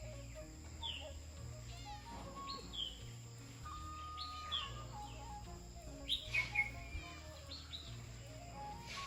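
Soft background music with a slow, stepping bass line, and small birds chirping over it in short, falling calls, a few louder chirps a little past the middle.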